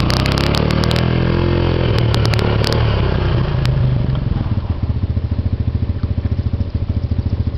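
Kawasaki Bayou 250 ATV's single-cylinder four-stroke engine running, its pitch rising and falling through the first three seconds as it is ridden, then settling to an even, pulsing putter, a little quieter, as the quad is farther away.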